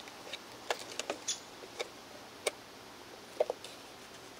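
Faint, irregular small clicks and taps, about ten of them: AA batteries and the plastic battery holder of an RC radio transmitter being handled, with the polarity being checked because the radio won't power on.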